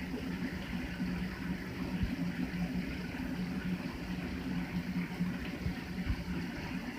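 Shower running: a steady spray of water falling and splashing, with a low steady hum underneath.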